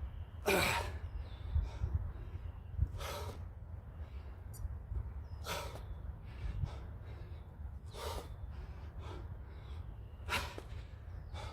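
A man breathing hard through a set of explosive jump squats, with a sharp, forceful exhale about every two and a half seconds, five in all.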